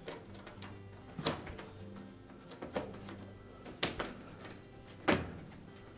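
Rubber door bellows of a Whirlpool front-load washer being pulled out and worked by hand onto the front-panel flange: four short, sharp slaps and rubs of rubber against the metal panel, about a second apart.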